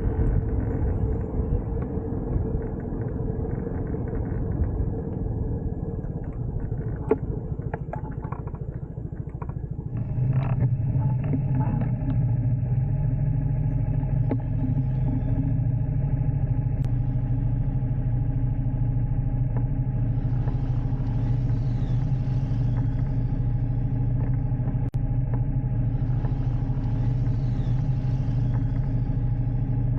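Aveta Vanguard 250 motorcycle engine running steadily under way, with a low rumble; it gets louder about ten seconds in.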